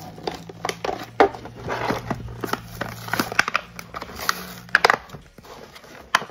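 Cardboard and plastic toy packaging being torn and crumpled open by hand, an irregular run of crackles and tears with a sharp crack about a second in and a cluster of louder cracks near the end.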